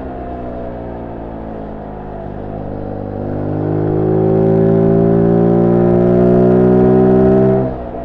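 Zontes U1 125 motorcycle's single-cylinder 125 cc engine through its stock exhaust, heard on board. Its revs fall off the throttle for the first two seconds, then rise steadily and louder as it pulls for about five seconds, and drop sharply just before the end as the throttle closes.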